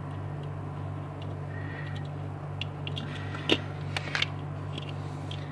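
A few small plastic clicks and taps from handling a tiny model car, its plastic body pressed onto the chassis, with the sharpest click about three and a half seconds in and two more just after four seconds. A steady low hum runs underneath.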